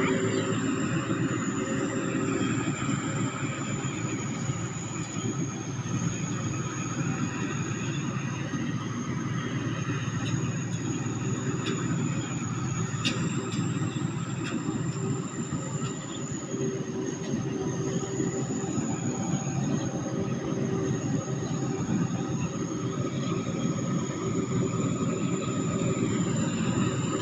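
Sakphatthana SS-300 combine harvester's turbocharged diesel engine running steadily, with a sharp, high turbo whistle that wavers slightly in pitch over the engine drone.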